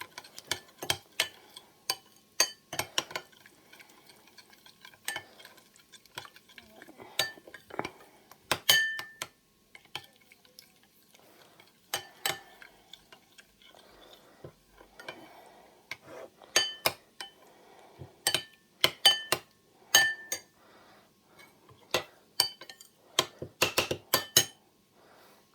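A spoon stirring a thick yogurt-and-mayonnaise sauce in a bowl, clinking sharply against the bowl's side in irregular runs with short pauses between.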